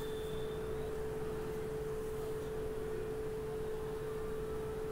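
A steady pure tone at one fixed pitch, unchanging in level, over a faint low hiss.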